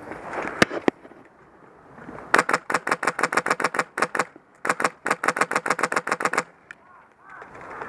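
Airsoft HK416 replica with a PolarStar air-powered engine firing two full-auto bursts of about two seconds each, a rapid string of sharp clicks at roughly ten shots a second, with a short pause between them. Two single sharp clicks come about half a second in.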